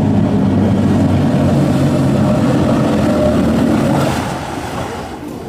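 A steady engine-like hum over a rushing hiss, loud for about the first four seconds and then easing off.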